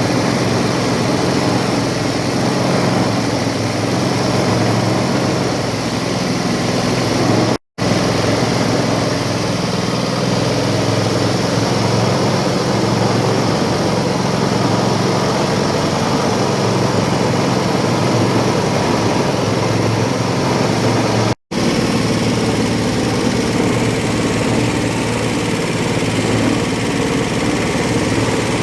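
Cassava grating and pressing machine for tapioca flour, running steadily with a loud engine-like drone and hum. The audio drops out completely for an instant twice.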